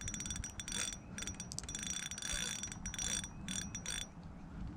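Fishing reel ticking in irregular runs of sharp clicks for about four seconds, then stopping.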